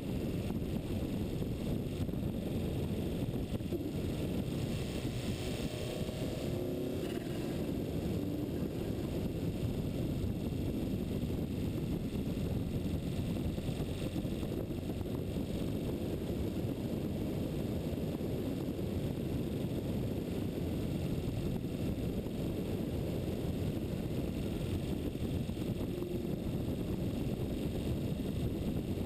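Steady low wind rush buffeting the microphone of a camera moving fast downhill, with no engine note or voices over it.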